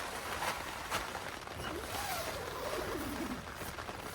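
Steady rain falling, an even hiss, with a few light taps. About two seconds in, a faint single call rises and then falls away.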